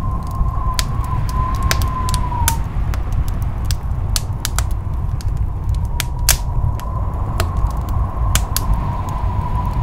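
A steel kitchen knife cutting the skin off a raw pumpkin wedge on a wooden board: irregular crisp clicks and scrapes as the blade slices through the rind and knocks the board. Underneath runs a steady low hum, and a faint wavering whistle-like tone comes and goes.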